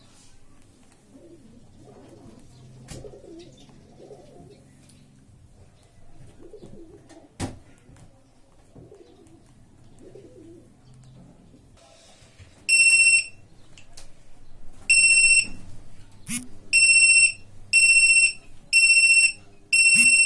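Access control system's piezo buzzer beeping after power is applied: starting about 13 seconds in, a run of shrill, high-pitched beeps, each about half a second long, at roughly one a second. Before that, faint low background sounds and a single sharp click.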